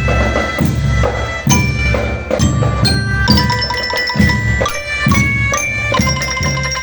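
Music on mallet percussion: a glockenspiel-like bell melody of struck, ringing notes over a pulse of drums.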